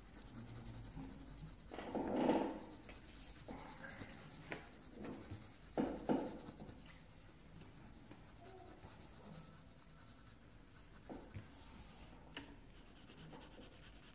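Coloured pencil scratching and rubbing faintly on paper as a drawing is shaded in, with a few brief louder rustles and taps of the paper and pencil.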